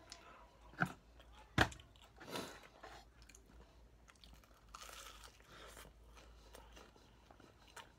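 Close-up biting and chewing of crispy fried chicken, with two sharp crunches in the first two seconds followed by softer chewing.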